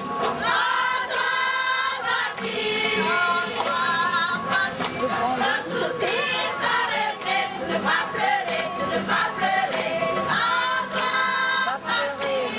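A mixed group of men and women singing together in harmony, accompanied by strummed guitars with a steady strumming beat.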